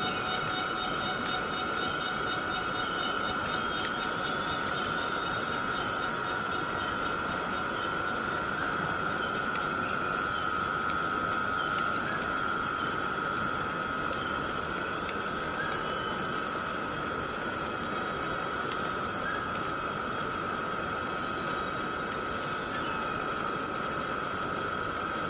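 Steady chorus of insects, a continuous high-pitched ringing drone that neither rises nor falls.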